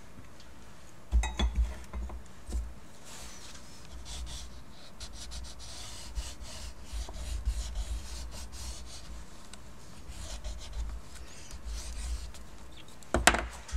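A crayon scratching and rubbing in quick strokes over paint-covered paper. A few dull knocks come about a second in and again near the end.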